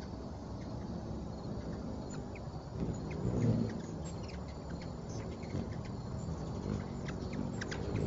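Ruby-throated hummingbirds at a feeder: a low wing hum that swells about three and a half seconds in as one hovers close, with many short, high chip calls scattered throughout, thickest in the second half.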